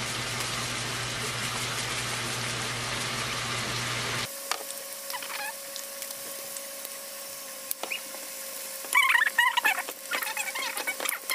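Chickpeas and seasonings sizzling as they sauté in a pot; the sizzle cuts off abruptly about four seconds in. Near the end come quick, wavering, high-pitched chirps and squeaks.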